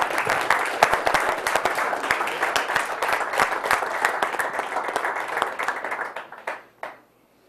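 Audience applauding, many hands clapping together. The applause dies away about six seconds in, with a last few scattered claps.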